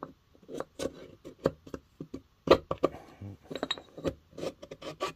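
Irregular metal clicks and taps as a piston ring is set into a two-stroke jet-ski engine cylinder bore and pushed square with the piston to check its end gap. The loudest click comes about two and a half seconds in.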